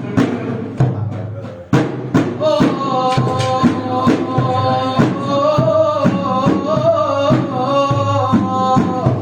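Music: a steady drum beat under a held, slightly wavering melody line that comes in about two and a half seconds in.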